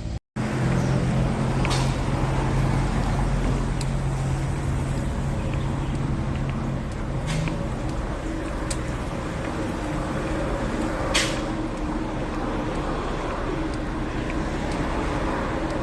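Street traffic noise with a vehicle engine running close by as a low steady hum that fades out about halfway through. A few sharp clicks or knocks are heard, the loudest about eleven seconds in.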